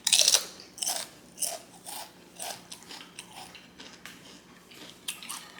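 Close-up crunchy bite into pizza, then steady chewing at about two chews a second that grows softer, with a few more crunches near the end.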